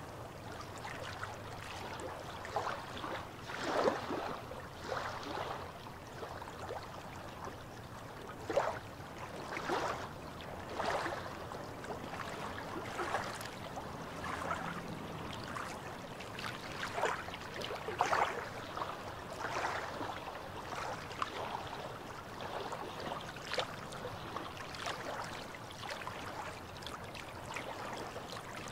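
Small waves lapping and splashing against shoreline rocks in calm sea, a steady wash broken by irregular short slaps and gurgles every second or so.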